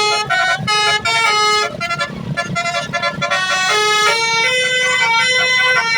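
Bus 'telolet basuri' musical horn playing a tune: a quick run of short notes, then from about two seconds in longer held notes.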